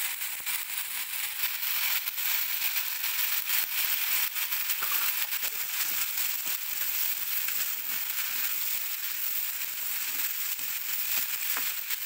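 Diced vegetables and green peas sizzling in hot oil in a pan while being stirred, with frequent short scrapes and clicks of the spatula against the pan.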